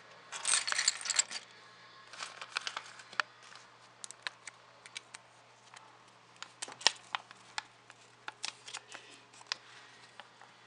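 Loose plastic Lego pieces being handled on a wooden table: a dense burst of rattling clatter in the first second or so, then scattered sharp clicks and light rustling as a paper instruction booklet is handled.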